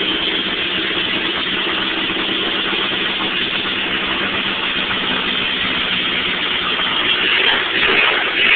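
Car's four-cylinder engine idling steadily through only a 4-into-1 exhaust header, with no muffler, so the exhaust note is open; it swells slightly near the end.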